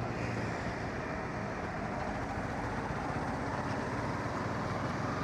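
Steady road and wind noise of a motorcycle ride, picked up by a DJI Mic Mini wireless mic with noise reduction switched off.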